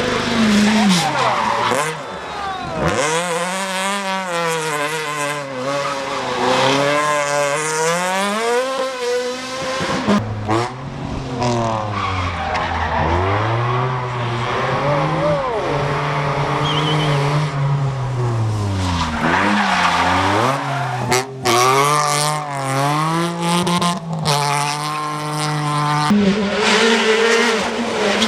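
Rally car engines at full throttle, revving up and dropping back through gear changes again and again as cars come past one after another. The sound breaks off and jumps abruptly several times.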